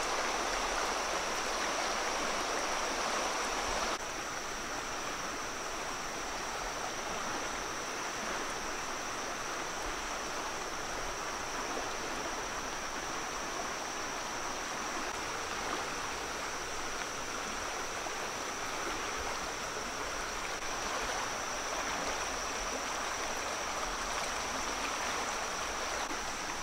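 Flowing stream water, a steady rushing, with a constant high-pitched tone over it. The level drops slightly about four seconds in.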